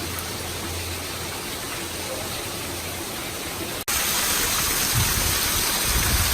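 Waterfall rushing as a steady, even roar of falling water. There is a brief dropout nearly four seconds in, after which the rush is louder, with low rumbling underneath.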